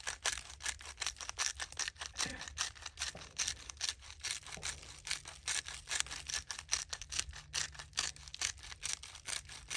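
Hand spice grinder of roasted garlic and herb seasoning being twisted over a steak, making a rapid run of dry clicks, several a second.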